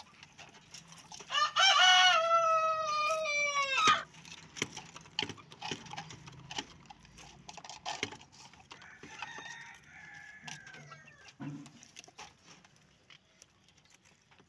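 A rooster crowing once, a long call of about two and a half seconds that drops in pitch at the end. A fainter call follows around nine seconds in, with scattered small clicks.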